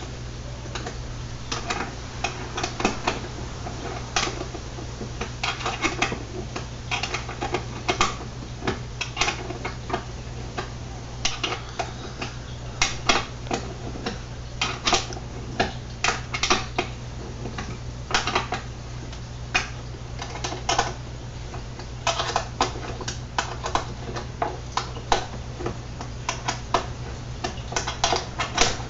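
Socket ratchet clicking in short irregular runs as the lamp housing's bolts are snugged down, over a steady low hum.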